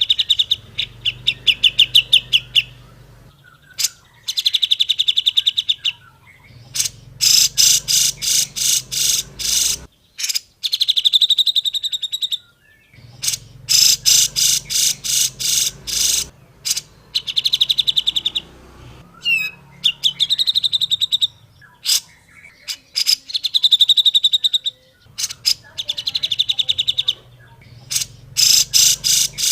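Cucak jenggot, a bulbul, singing a string of fast trilled phrases. Each phrase lasts a second or two and is made of rapid repeated notes, some clear and some harsh and chattering, with short pauses between phrases.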